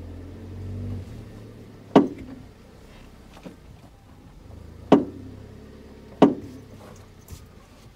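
A car engine's low hum fades out in the first second, then three sharp thumps land about 2, 5 and 6 seconds in, each with a short ringing tail.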